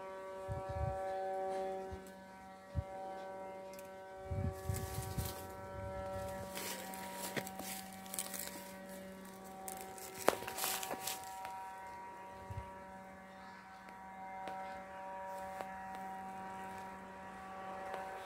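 Dry leaves rustling and crackling as a dog shifts and rolls on them while being petted, with low thumps from handling close to the microphone. A steady droning hum runs underneath.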